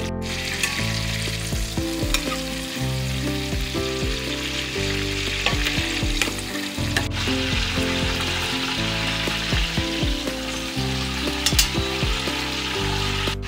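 Whole sugar apples sizzling in a wok of hot oil: a steady frying hiss with a few sharp clicks. Background music with shifting low notes runs underneath.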